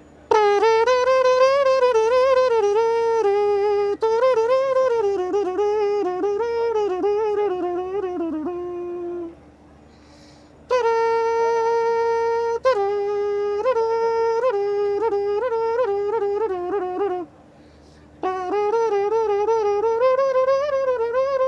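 A reedy, pipe-like melody in three phrases, with quick wavering ornaments on the notes and short breaks between the phrases.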